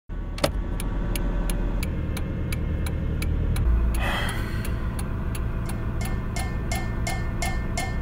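Car turn signal clicking steadily, about three clicks a second, over the low rumble of the running car, heard inside the cabin. A short rustle comes about four seconds in, and from about six seconds in each click carries a faint ringing tone.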